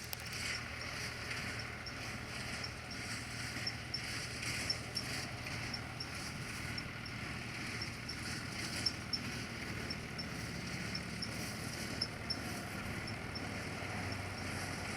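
Ford 3000 tractor running steadily, pulling a small square baler that is working, with a regular high tick repeating a few times a second.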